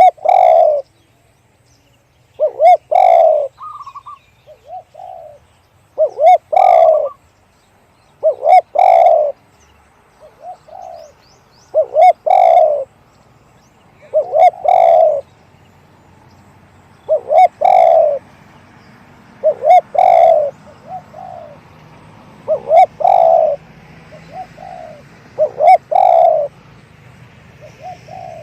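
Spotted dove cooing: a loud, low two-part coo phrase repeated about every three seconds, with softer short notes between phrases.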